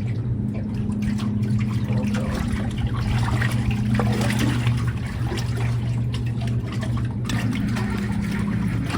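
Water trickling and splashing over a steady low hum.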